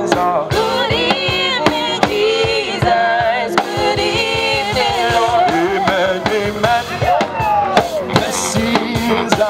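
Live gospel praise music: a male lead singer on a microphone, amplified through a PA, over a keyboard and a steady drum beat.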